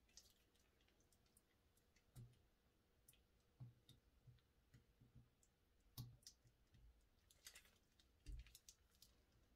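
Faint, irregular clicks and soft taps from slime and plastic piping bags being handled while making slime.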